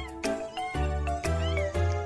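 A cat meowing over background music with a steady beat; a meow arches up and down about halfway through.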